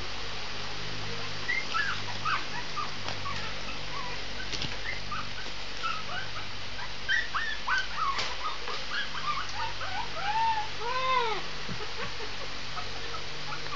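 Shih tzu puppy whining and yipping in short, high-pitched squeaks, with a few longer rising-and-falling howls about ten to eleven seconds in.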